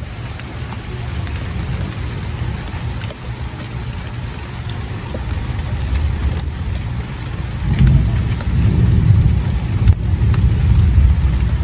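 Rain falling steadily, with scattered drop ticks over a constant hiss, and a low rumble that grows louder about eight seconds in.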